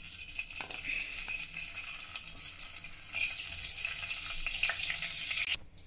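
Butter sizzling as it melts in hot oil in a pot, stirred with a wooden spatula; the hiss grows a little louder about three seconds in and cuts off suddenly near the end.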